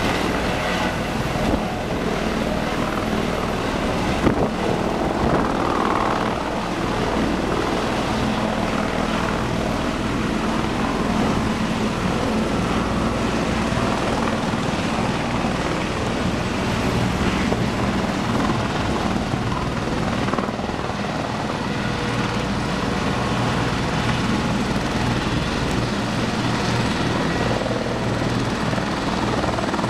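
Eurocopter EC130 helicopter, turbine engine and rotor running steadily and loudly at close range as it hovers and lifts away from the pad.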